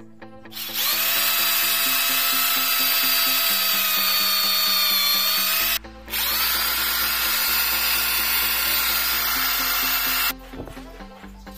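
Xtra Power XPT 435 26 mm rotary hammer drill boring into a brick with a masonry bit, in two runs of about five and four seconds split by a short stop. Its motor gives a steady whine that sags slightly just before the first run stops and rises again as the second run starts.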